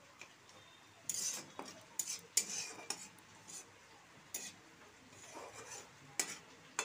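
Metal spatula stirring and scraping in a kadai as whole spices (cumin seeds, bay leaf, cinnamon) fry in hot oil, with irregular short crackles and pops from the spices over a low sizzle.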